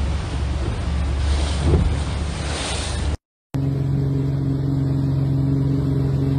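Wind buffeting the microphone and rushing water from a moving boat, with a low rumble. After a brief cut, a motorboat engine runs at a steady pitch over wake noise while towing a water-skier.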